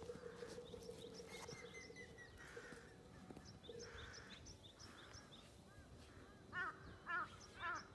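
Faint dawn birdsong: small birds chirping in quick, high repeated notes, then a crow cawing three times near the end.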